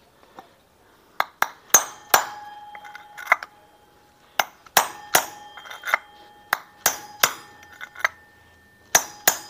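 Hammer blows on metal driving the needle bearing out of a Honda Vario 125's rear driven pulley. They come as a run of irregular, sharp strikes, two or three a second, starting about a second in, and each rings briefly.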